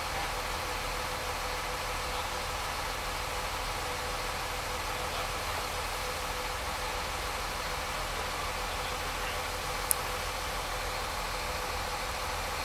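An engine running steadily at idle, with no hammer blows, and one sharp click about ten seconds in.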